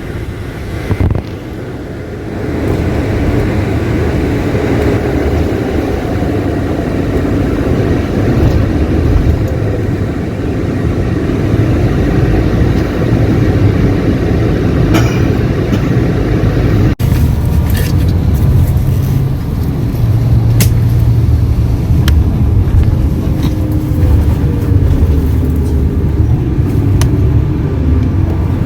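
Coach on the move: steady engine and road rumble whose pitch drifts slightly up and down. The sound breaks off sharply about 17 seconds in and carries straight on, with a few faint clicks after.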